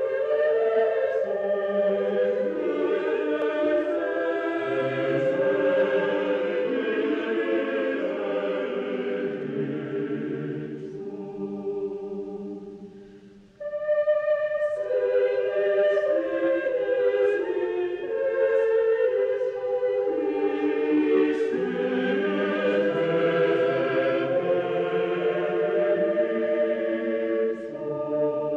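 A choir singing slow, sustained sacred music, moving from chord to chord. About halfway through it fades almost away, then comes back in suddenly with a new phrase.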